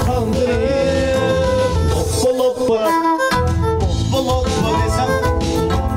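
Live band playing an instrumental passage of an Uzbek pop song: a violin melody over keyboard and a steady bass beat. The bass drops out for about a second midway, then comes back in.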